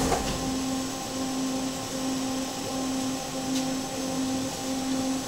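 Detroit People Mover car running along its elevated guideway, heard from inside the car: a steady hum with a low tone that pulses at an even rhythm, a bit more than once a second.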